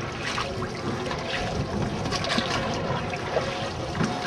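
Rowboat's wooden-handled oar dipping and pulling through river water, with several short splashes and drips over a steady rush of water and wind.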